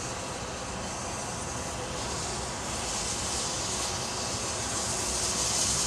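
Peppercorn A1 Pacific steam locomotive 60163 Tornado approaching in the distance with its train: a steady rushing hiss that grows a little louder toward the end.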